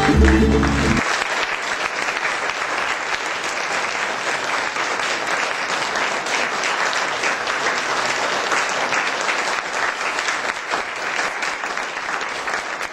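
A crowd applauding: dense, steady clapping that takes over as the last notes of a song die away about a second in.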